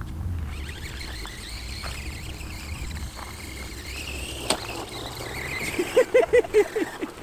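RC monster truck's brushed electric motor whining as it drives across dirt, the whine rising and falling with the throttle. A sharp click comes partway through, and a quick run of short pitched sounds comes near the end.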